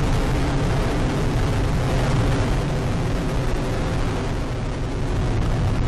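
Delta IV Heavy rocket's three RS-68A engines firing during ascent: a steady, low, rumbling noise with no break.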